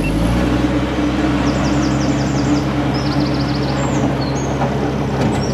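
Narrowboat's diesel engine opened up under throttle: its pitch rises at the start and then holds at a steady, loud run while the boat is powered around a tight bend. Birds chirp in short quick runs in the middle.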